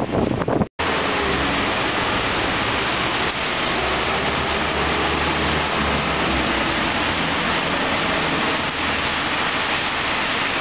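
Steady, even rush of heavy typhoon rain, with a low hum of traffic underneath, starting after a brief cut about a second in.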